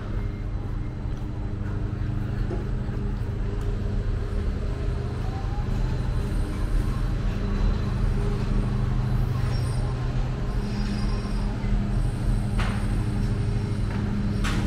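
A large diesel truck engine idling with a steady low hum that grows louder, over street traffic. Two short, sharp noises come near the end.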